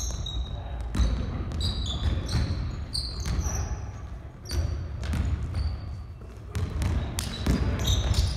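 Basketball dribbled and bounced on a hardwood gym floor in irregular thuds, with short high-pitched squeaks of sneakers on the boards as players run and cut.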